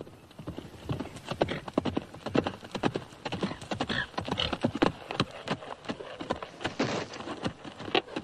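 A horse galloping on grassy ground: a fast, uneven drumming of hoofbeats that gets louder in the first second as it comes on.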